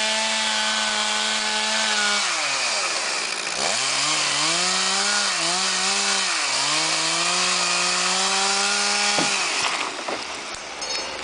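Two-stroke chainsaw running at high revs. Its engine speed drops sharply about two seconds in and swings up and down through the middle, then holds high again until it stops about nine seconds in. Scattered knocks and cracks follow near the end.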